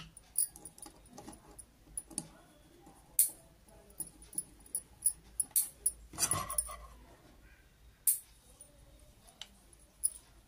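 Small metal sewing-machine shuttle-race parts clicking and clinking against each other and the wooden table as they are handled and fitted back together, with one longer, louder clatter about six seconds in.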